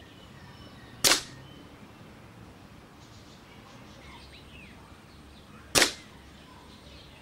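Air rifle firing twice: two sharp cracks about four and a half seconds apart, each dying away quickly.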